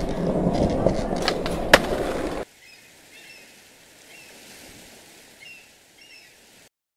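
Skateboard wheels rolling on a hard floor: a steady rumble with a few sharp clicks, cut off suddenly about two and a half seconds in. After that there is a faint, quiet background with a few short high chirps.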